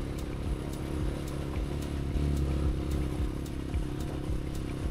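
Viar Karya three-wheeler's engine running slow and steady in first gear as it crawls over a rough, broken gravel track, with light knocks and rattles from the bumps.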